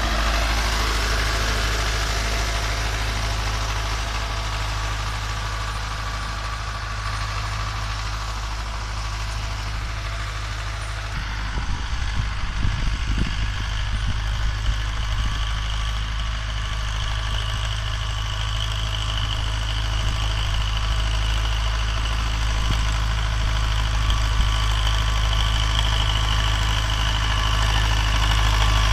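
Tractor's diesel engine running steadily as it pulls a plough through the soil, a low drone that grows louder near the end as the tractor comes back toward the microphone.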